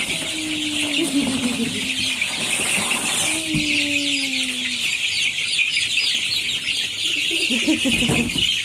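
Many baby chicks peeping at once, a dense, unbroken chorus of short high peeps. Two longer, lower drawn-out calls that fall slightly in pitch stand out in the first half.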